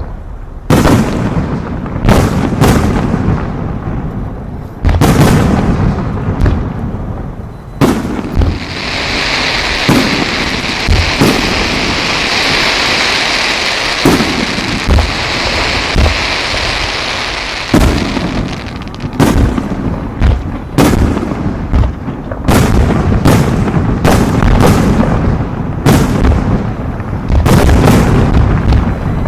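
Fireworks going off: a long run of sharp booming bangs, some in quick clusters. From about a third of the way in to past the middle, a steady high hiss sits under the bangs.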